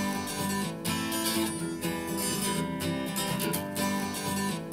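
Instrumental song intro led by a strummed acoustic guitar, steady and rhythmic, before the vocals come in.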